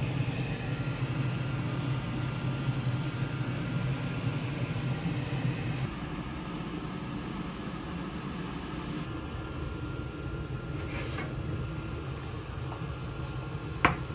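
Steamer pot boiling hard under its glass lid: a steady low rumble with a faint, steady high whine over it. About six seconds in, the rumble drops to a quieter steady background, and near the end come a few sharp clicks.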